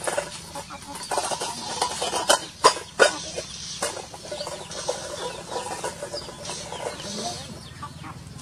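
Rooster clucking and squawking in short, irregular calls, with a few sharp knocks or slaps about two to three seconds in, the loudest sounds.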